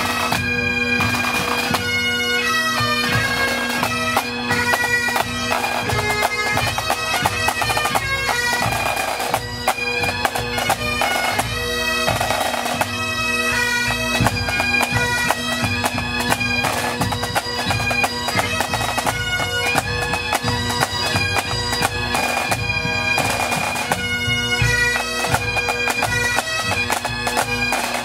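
Pipe band playing: Great Highland bagpipes sounding a melody over steady drones, with snare drums and a bass drum keeping time.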